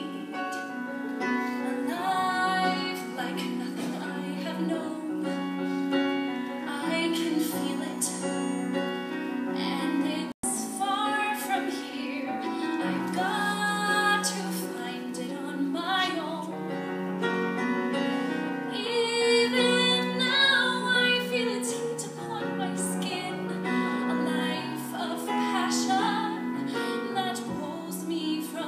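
A woman singing a musical-theatre ballad solo with piano accompaniment. The sung phrases rise and fall over sustained chords, and the sound drops out for an instant about ten seconds in.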